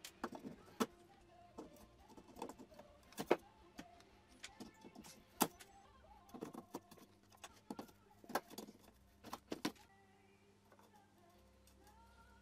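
Metal screwdriver prying and scraping at the plastic bulb-holder mount inside a Volvo XC60 headlight housing, cutting the mount away: a run of irregular sharp clicks, cracks and scratches that stops about ten seconds in.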